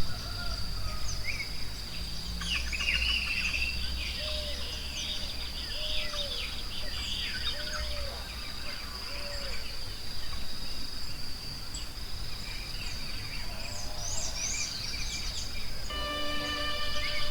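Forest ambience: many birds chirping and calling over a steady high insect drone and a low rumble, with one bird repeating a short low call every second or two. Soft instrumental music with held notes comes in near the end.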